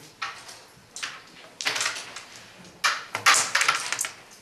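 Carrom break shot: the striker cracks into the packed centre formation of wooden carrom men, and the pieces clatter as they scatter, knocking against each other and the board's frame for about a second, about three seconds in. A couple of single clicks come before it.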